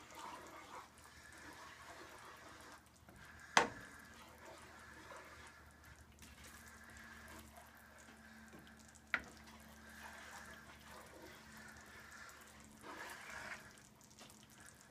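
Thick tomato sauce simmering faintly and being stirred with a spoon in a nonstick frying pan, a soft wet scraping and bubbling. The spoon knocks sharply against the pan twice, once a few seconds in and once about halfway.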